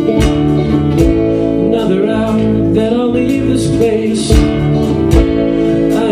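Live band playing a worship song: strummed guitars over a drum kit, with a drum hit about once a second.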